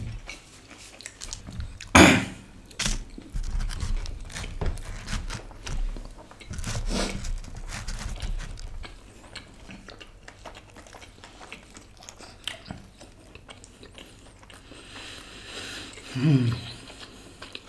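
People chewing and biting into pizza, mouth sounds close to the microphone, with a few sharp knocks and clatters on the table and pizza boxes, the loudest about two seconds in. A short hum from one of the eaters near the end.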